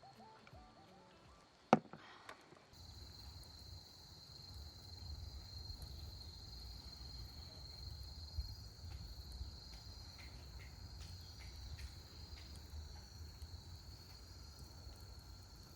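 Autumn insects chirring in a steady high-pitched chorus that comes in about three seconds in, over a low rumble with scattered faint clicks. A single sharp click sounds just before the chorus starts.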